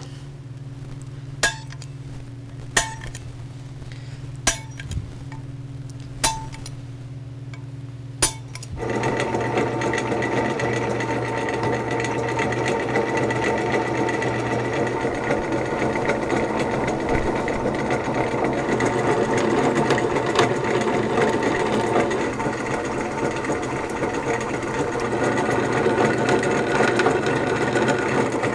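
Steel bolts clink five times as they are set down on a steel plate, over a steady low hum. About nine seconds in, a drill press starts boring through thick steel angle and plate, and its steady grinding whir runs to the end.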